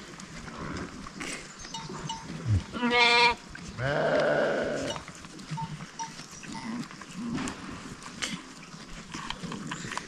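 Goats bleating: a short loud bleat about three seconds in, then a longer quavering bleat just after, with soft shuffling of the herd around them.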